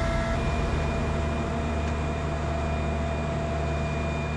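Steady low engine drone with a thin high-pitched whine held over it, from vehicles or ground equipment running on a flight line.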